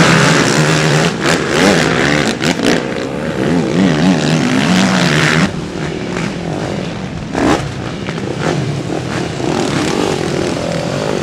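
Motocross dirt-bike engines revving up and down as the bikes ride the track. The sound drops suddenly about halfway through, and another bike revs briefly after that.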